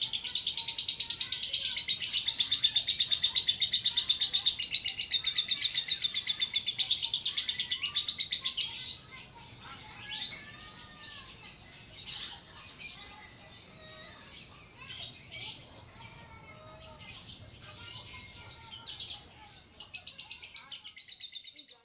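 Caged lovebirds chattering in a long, rapid, high-pitched trill. It breaks off about nine seconds in to a few scattered calls, then starts up again near the end.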